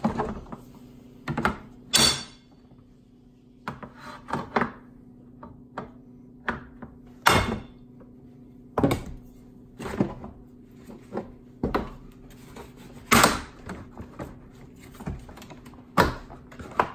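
A hammer knocking a putty knife wedged into the seam of a plastic hose-reel housing, a sharp knock every second or so at an uneven pace, to pry the side plate's snap clips loose.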